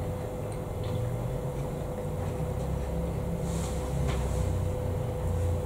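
Someone chewing a mouthful of pastry-topped pie, with an uneven low sound from the mouth, a few faint ticks, and a steady low electrical hum underneath.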